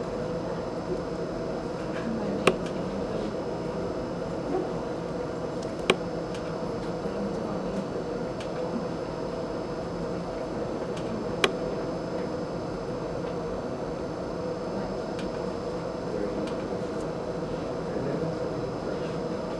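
Steady ventilation hum, with three sharp clicks spread through it.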